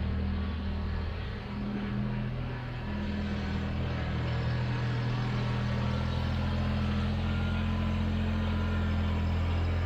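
Vehicle engine running steadily at low speed, its hum shifting a little in pitch in the first few seconds.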